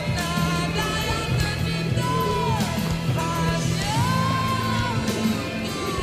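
Background music: a pop song with a sung vocal over a steady bass line, the voice sliding between held notes.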